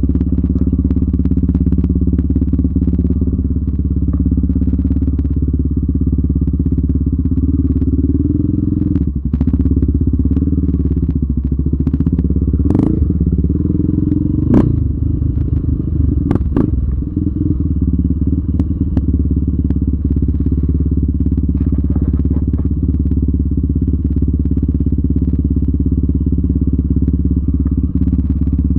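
Yamaha Raptor 700R sport quad's single-cylinder four-stroke engine running under way, its pitch rising and falling with the throttle through the middle. A few sharp knocks come partway through.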